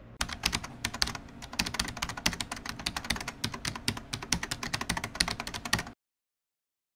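Typing sound effect: a fast, dense run of key clicks that cuts off suddenly near the end.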